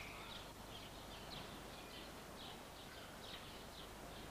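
Faint birds chirping, short chirps repeating every fraction of a second, over a low steady hum.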